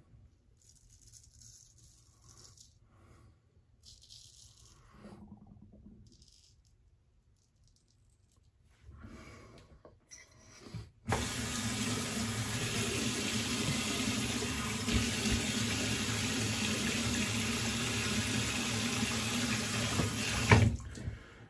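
A few soft scrapes of a straight razor through lather on stubble, then, about eleven seconds in, a tap turned on and running steadily into a sink for about ten seconds, cut off with a sharp knock near the end.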